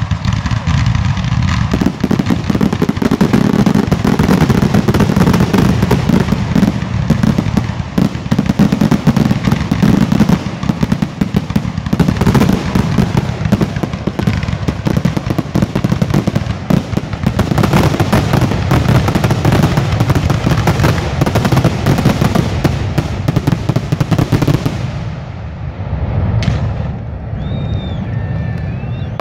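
Aerial fireworks going off in a dense, continuous barrage: shell bursts and crackling cracks overlap into one unbroken roll, the kind of run fired as a finale. The barrage eases off about 25 seconds in.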